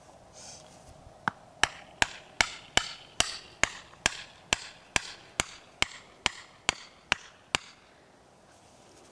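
A tent peg being driven into grassy ground with a mallet: about sixteen steady blows, two to three a second, starting a second or so in and stopping shortly before the end.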